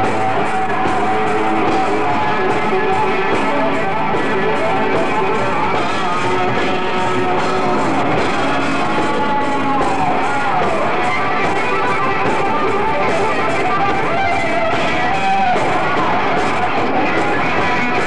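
Live rock band playing loud, steady hard rock with electric guitar prominent, and a few sliding notes about ten seconds in.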